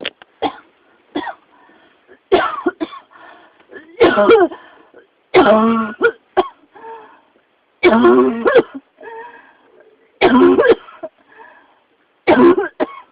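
A person coughing in a fit that won't stop: roughly a dozen harsh, voiced coughs, many in quick pairs, coming about every one to two seconds, with faint breaths between them. The uploader labels it a pneumonia cough.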